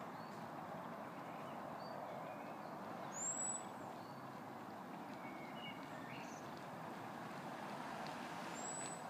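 Outdoor ambience: a steady hum of distant road traffic with scattered bird chirps, and a short high chirp about three seconds in and again near the end.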